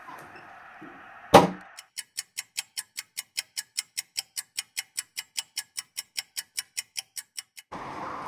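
A door slams shut once, loudly, then a clock ticks quickly and evenly, about five ticks a second, for nearly six seconds. A steady background hiss comes in near the end.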